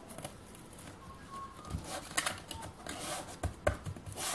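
Light rustling and scattered small clicks as a triangular hook-and-loop sanding pad is lined up and pressed by hand onto the base of a detail sander, the clicks coming more often from about two seconds in.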